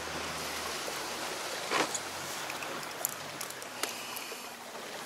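Sea water washing and splashing against the side of a small boat, with a low hum that fades out in the first second or two. A few sharp knocks sound over it, the loudest about two seconds in.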